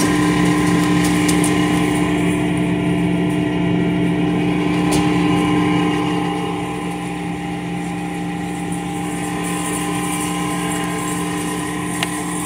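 Steady electric hum of an open refrigerated meat display case, its fans and refrigeration running, a little quieter from about halfway. A few faint clicks of plastic-wrapped meat trays being handled.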